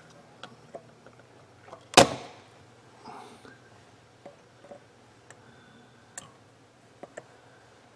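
Small hand tools clicking and tapping at a circuit board while relay pins are desoldered, with one loud sharp snap about two seconds in.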